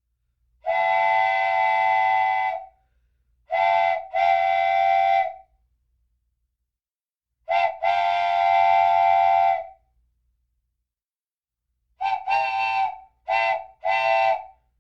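Wooden train whistle blown in a series of blasts, each a chord of several tones. The pattern is a long blast, a short toot and a longer blast, another short toot and a long blast, then four quick toots near the end.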